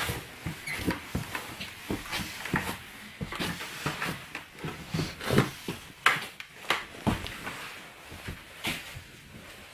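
Irregular footsteps and knocks as people climb down and move about inside a small room, with a few louder thumps a little past the middle.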